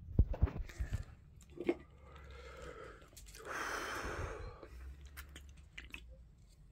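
A few loud knocks and bumps in the first second, like a camera being picked up and moved, a single knock a moment later, and then a rushing hiss lasting about a second near the middle.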